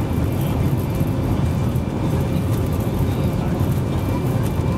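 Jet airliner's engines and wheel rumble heard from inside the cabin as the plane rolls along the runway. The sound is a steady, loud, deep rumble with a hiss on top.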